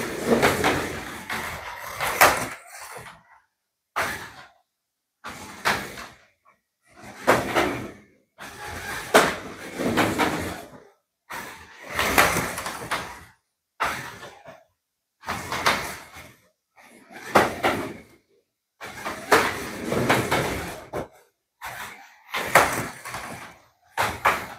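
TTS 1/24 scale March F2 front-wheel-drive slot car running on the slot track, its motor quiet and its guide clattering and cracking over the track joints in repeated bursts about every two seconds, with short gaps between them. The guide sits too low and catches on the joins.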